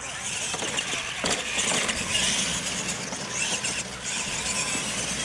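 Two radio-controlled monster trucks launching and racing across dirt: electric motors and gearboxes whining and tyres scrabbling, starting suddenly and rising and falling as they drive.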